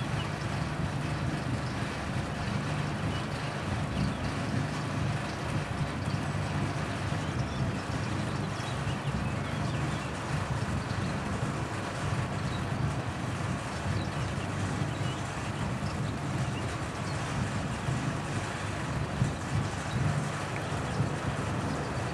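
A machine running steadily: a continuous low hum with an even rushing noise over it.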